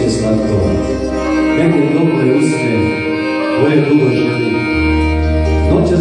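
Live Serbian folk music: a chromatic button accordion plays the melody over synthesizer keyboard accompaniment with a programmed beat. The deep bass drops out about two seconds in and comes back near the end.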